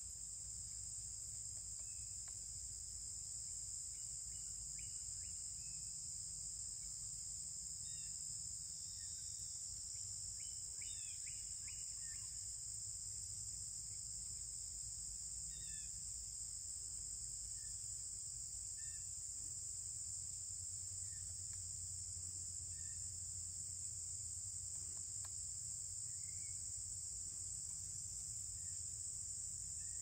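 Steady, high-pitched chorus of insects shrilling without a break, with a few faint short bird chirps scattered through it over a low background hum.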